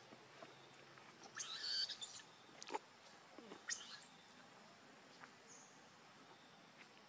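A few brief high-pitched animal calls over a faint, quiet background: the loudest comes about a second and a half in, with two shorter calls around three and four seconds in.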